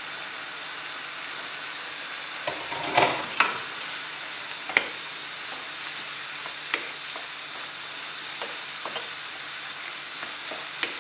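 Pieces of wild boar cooking in red wine in a frying pan, sizzling steadily, while a wooden spoon stirs them and clicks and knocks against the pan. The loudest knocks come in a cluster about three seconds in, with single lighter knocks after.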